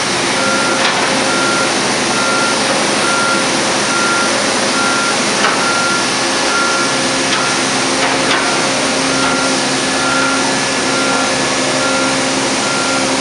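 Construction machinery running steadily with a backup alarm beeping over it, about four beeps every three seconds, and a few sharp metallic knocks.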